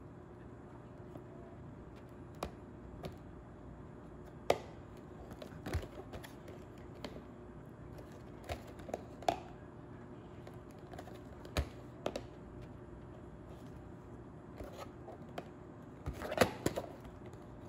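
Small cardboard model box handled and turned over in the hands: scattered light clicks and taps of fingers and box edges on the card, with a quick cluster of clicks near the end, over a faint steady room hum.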